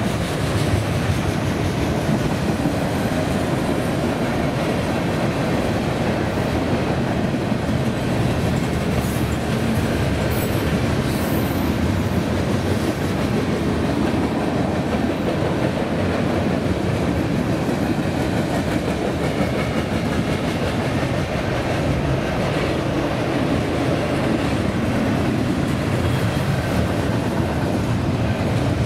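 Freight train cars rolling past at steady speed: a continuous rumble with wheels clicking over the rail joints.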